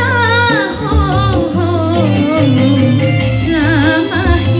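A woman singing a dangdut song into a handheld microphone, her voice bending and wavering through ornamented runs, over a dangdut backing track with a steady, pulsing bass line.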